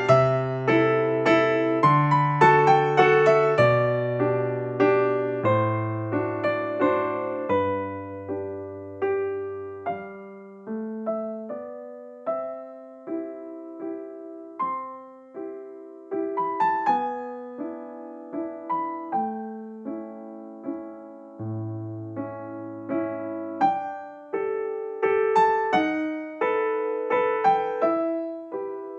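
Background music: a gentle solo piano (electric piano) piece, a melody of struck, fading notes over slow bass notes.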